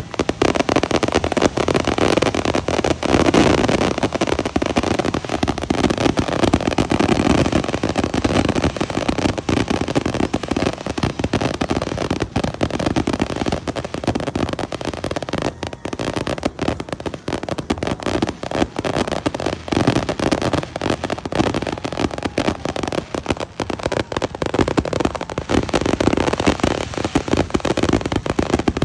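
Fireworks going off in a dense, continuous barrage: rapid bangs and crackling overlapping with no break.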